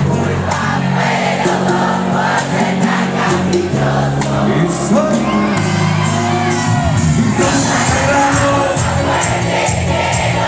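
Live cuarteto band music played loud through a concert sound system, with a steady beat and sung melody, and the crowd singing along.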